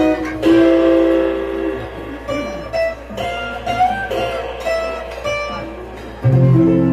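Guitar music: chords struck every second or so and left to ring, with a deeper, louder chord near the end.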